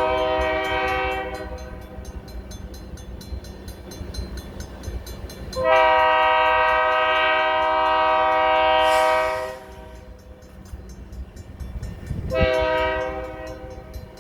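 Locomotive air horn blowing a multi-note chord as the train approaches a grade crossing: the end of one blast, then a long blast of about four seconds, then a short one, the crossing-signal pattern. The engine's low rumble runs underneath.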